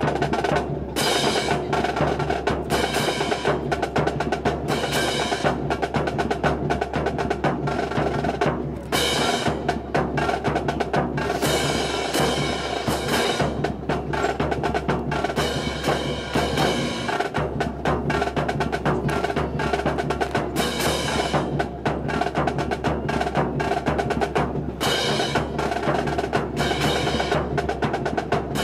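A rifle drill team handling Type 64 rifles and stamping in step: a dense, rhythmic run of sharp wooden knocks from hands slapping the rifles and boots striking the pavement.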